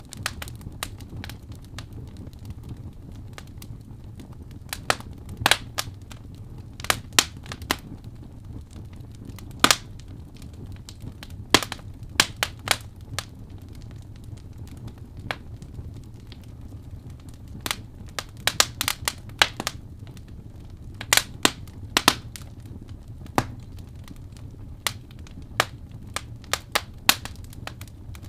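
Wood fire crackling: irregular sharp pops and snaps, some in quick clusters, over a steady low rumble of the flames.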